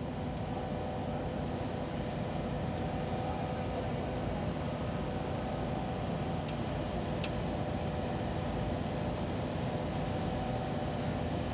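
Steady rumbling background noise with a faint, even hum and no distinct events.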